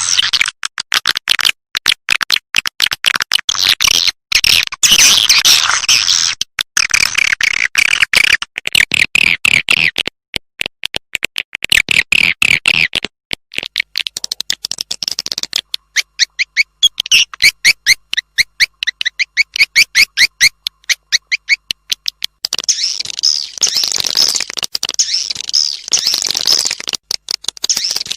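Swiftlet lure call, the recording played at swiftlet nesting houses to draw edible-nest swiftlets: dense, fast trains of high clicking chirps and twitters, coming in bursts of a few seconds with short breaks between them.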